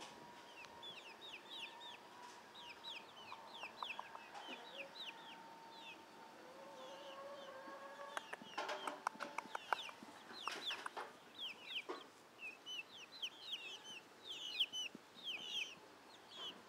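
Young reddish-brown chickens peeping, many short high cheeps several a second, with a few sharp clicks about halfway through.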